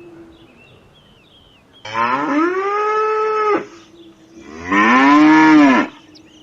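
A cow mooing twice: two long calls, each rising then falling in pitch, the second, near the end, louder than the first.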